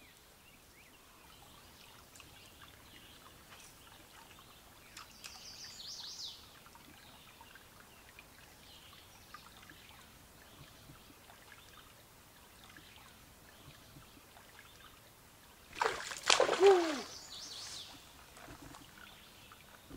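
Faint steady trickle of flowing river water, with a short high bird call about five seconds in. Near the end comes a brief, much louder sound that slides down in pitch.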